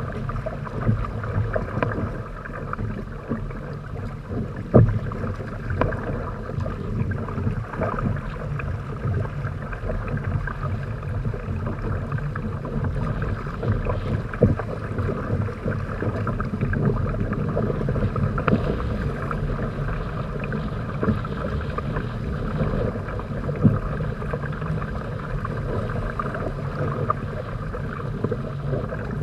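Water rushing and splashing along the hull of a Hobie Tandem Island trimaran under sail, with wind buffeting the microphone. A few sharp knocks stand out, the loudest about five seconds in.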